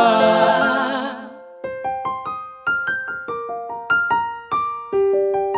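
Music: the full song mix fades out about a second in, then a solo electric-piano-style keyboard plays a slow melody of single struck notes, each ringing away before the next.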